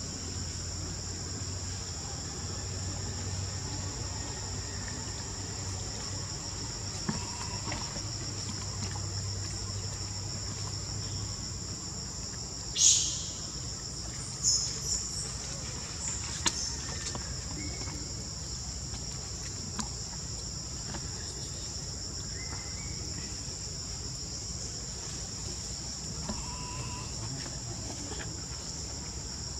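Steady insect chorus in the forest: a continuous high, two-pitched buzz. About midway, one short shrill squeal, the loudest sound, followed a second or two later by a few brief chirps and a click.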